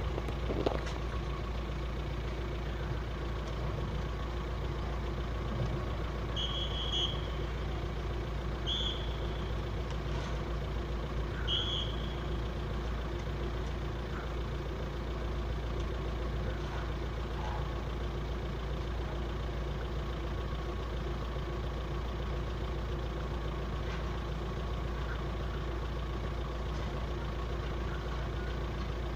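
Steady low rumble and hum of idling vehicle engines. Three short high-pitched tones come between about six and twelve seconds in.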